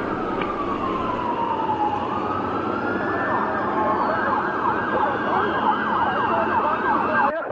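Emergency vehicle siren: a slow wail that falls and then rises, switching about four seconds in to a fast up-and-down yelp of roughly three sweeps a second, over steady street noise. A second, higher siren tone glides slowly downward behind it.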